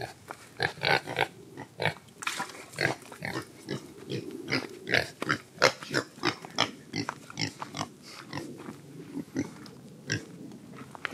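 Pigs eating and grunting, with many quick, irregular crunches and smacks as they chew a treat.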